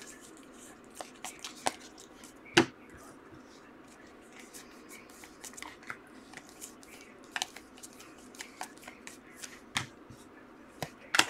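Hands flipping through a stack of football trading cards: soft sliding of card on card with scattered sharp clicks and taps as cards are moved through the stack, the loudest about two and a half seconds in.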